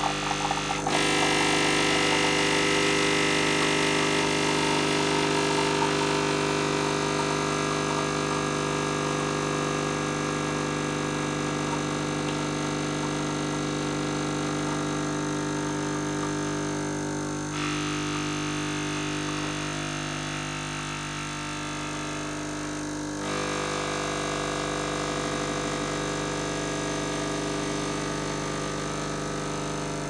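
Krups Nescafé Dolce Gusto capsule coffee machine brewing a lungo, its pump running with a steady hum as it forces water through the capsule. The tone shifts about a second in and twice more later on.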